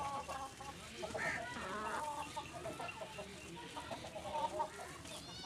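Chickens clucking in a run of short, repeated calls.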